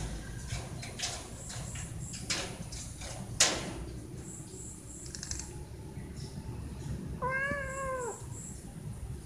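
A cat meows once near the end, a single call about a second long that rises and falls. Before it come scattered knocks and taps, the loudest about three and a half seconds in.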